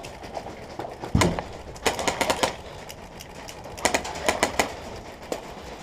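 Airsoft guns firing in several short bursts of rapid snapping shots, with a heavier thump about a second in.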